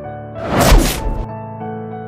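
A single slam sound effect about half a second in, a burst of noise lasting under a second, over sustained piano background music.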